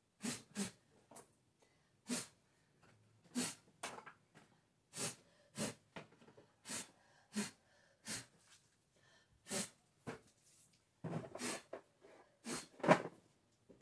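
A person blowing hard through the lips in short puffs, about a dozen of them roughly a second apart, to blow ash dust off a shelf and small boxes. The last puffs are the loudest.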